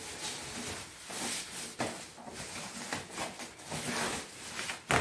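Thin plastic packing bag rustling and crinkling in irregular handfuls as it is worked off a new air fryer, with a sharp knock just before the end.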